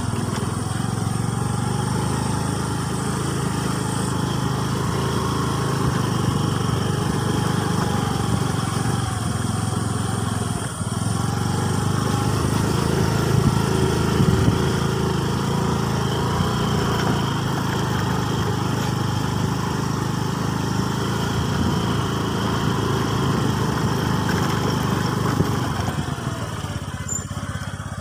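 Motor scooter's small engine running steadily while under way.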